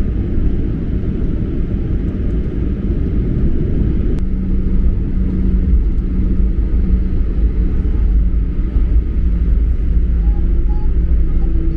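Airliner cabin noise: a steady low rumble of the jet in motion. About four seconds in there is a click, after which a steady low hum joins the rumble.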